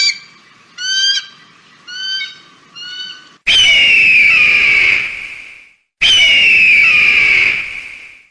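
Eagle calling: about four short, high yelping notes, roughly one a second and growing fainter, then two loud, long screams that fall in pitch, each about two seconds long and starting abruptly.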